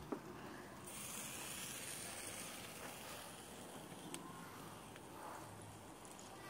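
Barbecue-sauced chicken sizzling faintly over charcoal on a Weber kettle grill: a steady soft hiss, with a faint tick now and then.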